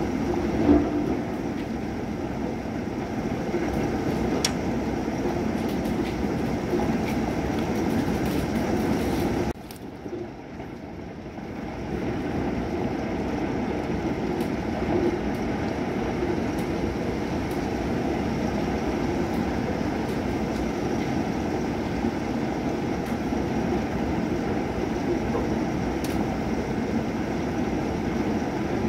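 Thunderstorm rain: a steady, loud rushing noise with a low rumble in it and scattered sharp ticks of drops. The noise falls off suddenly about ten seconds in and builds back about two seconds later.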